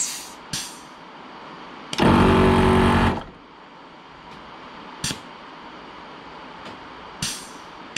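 ARB twin air compressor running for about a second, a loud rapid buzzing from its pumps, cutting in briefly to top up pressure with the air lockers engaged. Short hisses come before and after it over a steady background noise.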